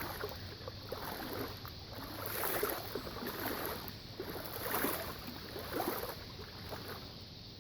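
Vehicle tyres pushing through floodwater on a road, the water swishing and splashing in uneven surges, loudest about two and a half and five seconds in.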